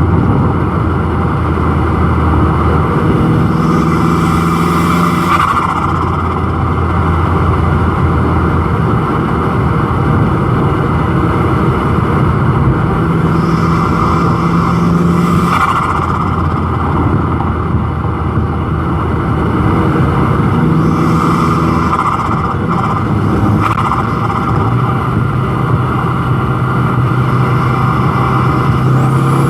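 Turbocharged Volkswagen Golf GTI engine, fitted with an aftermarket intake, accelerating in repeated pulls. About three times, the throttle closes and the turbo gives a short burst of flutter.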